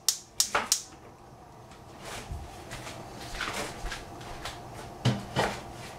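Gas stove igniter clicking rapidly, about three clicks a second, stopping within the first second, then a faint steady hiss from the lit burner. Two short louder sounds come about five seconds in.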